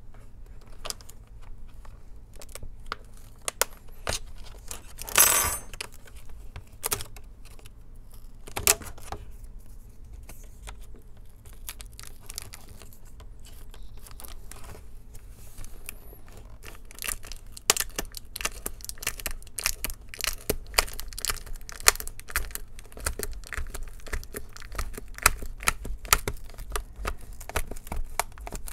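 Plastic screen bezel of an HP 14 Chromebook being pried and peeled off its double-sided tape with a metal prying tool: scattered sharp plastic clicks and crackles, a loud tearing crackle about five seconds in, and dense clicking and crackling through the second half.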